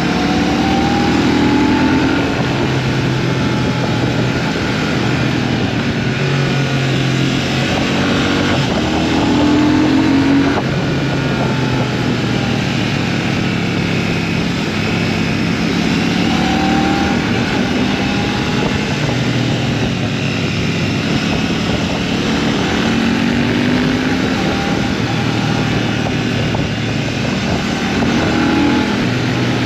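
Royal Enfield Shotgun 650's 648 cc parallel-twin engine being ridden hard through bends. Its note rises and falls about five times as the rider accelerates and backs off, over a steady rush of wind.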